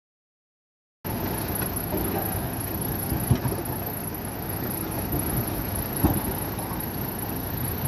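Diesel engine of an earthmoving machine running steadily, starting abruptly about a second in. Two sharp knocks stand out, about three seconds apart.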